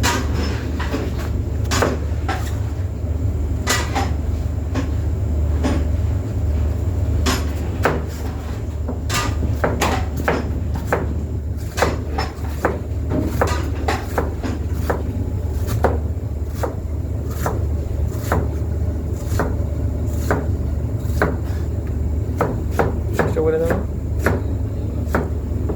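Irregular sharp knocks, about one or two a second, over a steady low hum.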